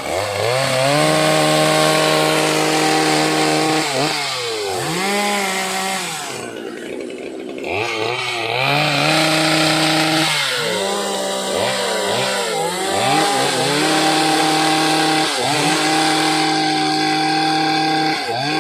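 Two-stroke chainsaw held at full throttle and cutting dry, hard teak, its engine dropping back and revving up again four or five times.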